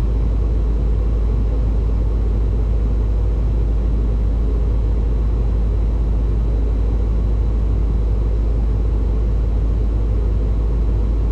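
Steady low rumble of a running vehicle, even and unchanging throughout.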